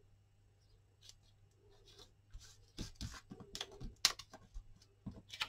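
Scissors and paper being handled: after about a second of quiet, a string of short crisp snips and paper rustles, the sharpest one about four seconds in.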